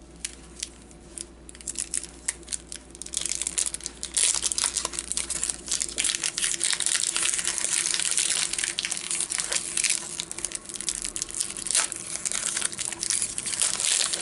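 Hockey card pack wrapper being torn open and crinkled by hand. A few separate crackles come first, then dense, steady crinkling from about three seconds in.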